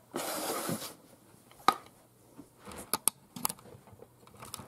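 Cardboard packaging being handled as a small product box is opened and emptied: a short scraping swish of cardboard near the start, then a scatter of light clicks and taps as the box and its contents are set down.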